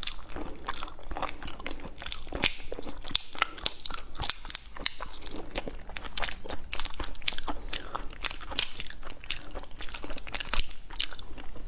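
Irregular clicking and cracking of a raw prawn's shell being peeled apart by hand, with chewing mixed in.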